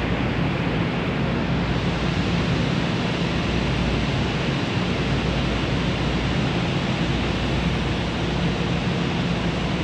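Metro-North M8 electric train standing at the platform, its ventilation and electrical equipment giving a steady rushing hiss over a low hum.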